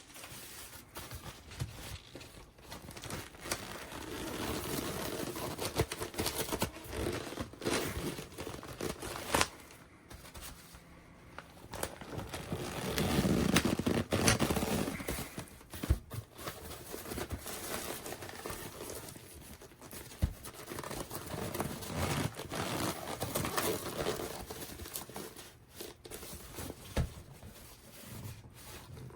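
Handling and unpacking sounds: plastic packaging and fabric of a softbox crinkling and rustling, with scattered clicks and knocks.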